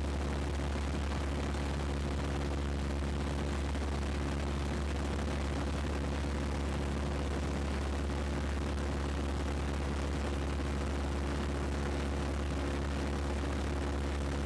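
Piper PA-17 Vagabond's engine and propeller droning steadily in flight, heard inside the small cabin as a deep, even rumble with no change in pitch.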